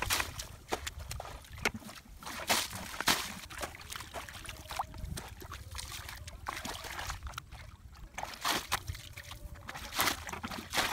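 Muddy water bailed with a plastic bucket: repeated scoops and splashing pours at irregular intervals, with sloshing in between.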